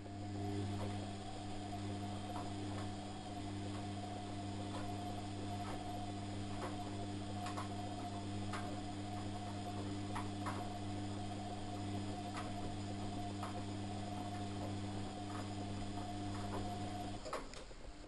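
Front-loading washing machine tumbling laundry in the wash phase of a cottons 60 °C cycle: the drum motor runs with a steady hum and irregular light ticks. The motor stops about a second before the end, a pause in the drum's turning.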